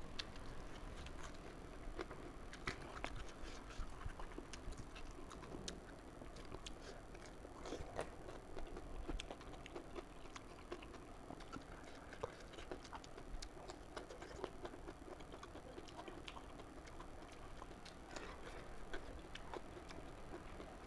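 Faint eating sounds: soft chewing with small irregular clicks and ticks, a few each second, over a low hiss.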